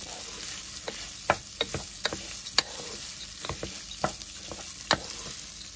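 Rice and orzo toasting in butter in a nonstick pot, sizzling steadily, while a wooden spoon stirs it, giving sharp irregular scrapes and taps against the pot. This is the dry-toasting stage of a Turkish rice pilaf before the water goes in.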